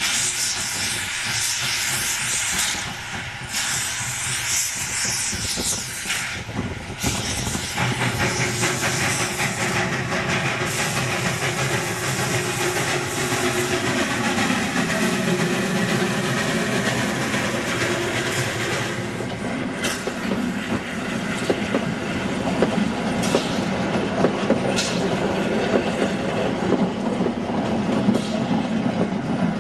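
Narrow-gauge steam locomotive pulling a train away with steam hissing. Its coaches then roll past, rumbling, with wheels clicking over the rail joints.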